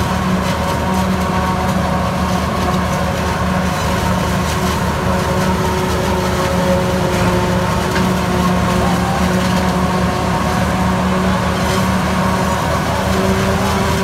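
New Holland FX48 self-propelled forage harvester running steadily while chopping maize into silage, with the Ford 4000 tractor's engine running alongside; a loud, even machine drone that does not change.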